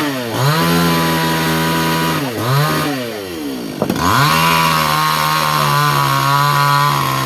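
Two-stroke chainsaw revved hard three times, dropping back toward idle between revs: a short burst at the start, a brief blip past two seconds in, and a long high rev from about four seconds in that sags slightly in pitch as it is held, as if working into wood, before it falls off near the end.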